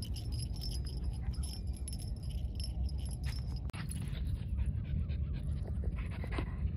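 Two French bulldogs wrestling on grass, a metal chain collar and harness hardware jingling, with a few sharp clicks around the middle and near the end, over a steady low rumble.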